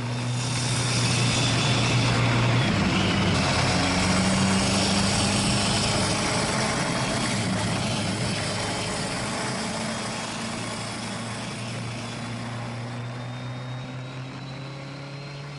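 Motorcycle engine running steadily on the road, heard from the bike itself, under a steady rush of wind and road noise, slowly getting quieter toward the end.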